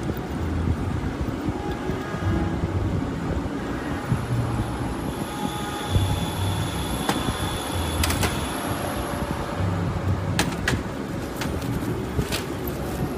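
Steady workshop rumble with a low hum that swells and fades, and a few sharp metallic clicks from metal tablet-press parts being handled and fitted on a steel bench.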